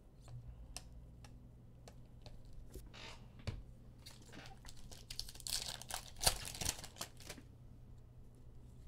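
Trading cards being handled and slid against one another while flipping through a freshly opened pack: soft rustles and small clicks, with a few louder swishes, the loudest about six seconds in.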